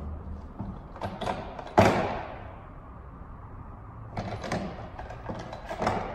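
A handful of knocks and thuds echoing in a large room, the loudest about two seconds in.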